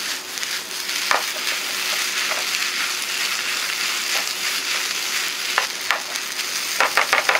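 Rice, beef, egg and kimchi sizzling in a nonstick frying pan as they are stir-fried with a wooden spatula: a steady frying hiss with occasional scrapes and knocks of the spatula against the pan, a quick run of them near the end.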